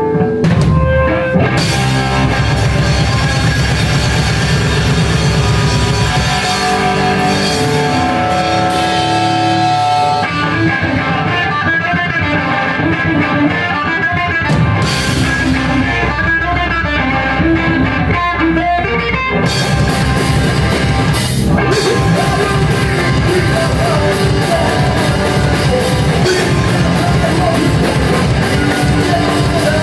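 Live rock band playing loudly: electric guitar over a drum kit, with the band coming in fuller and brighter about two-thirds of the way through.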